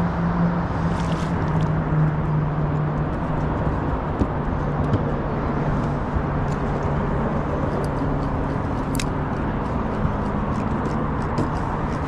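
A steady low motor hum over a rushing noise bed, with scattered light clicks and taps in the second half.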